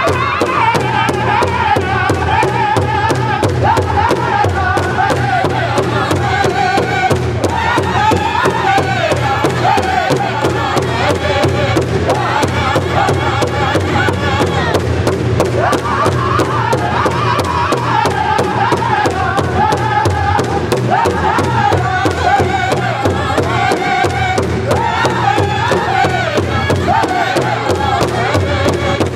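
Powwow drum group singing together over a large shared drum that several drummers strike in a steady, even beat, with women's voices joining from behind the circle.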